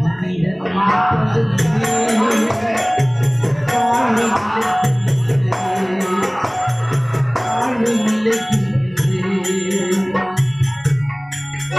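A man's voice singing a chant-like folk song over a fast, steady rattling, jingling percussion beat.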